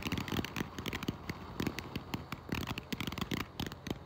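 Ground fountain firework spraying sparks and crackling, a rapid, irregular run of many small pops.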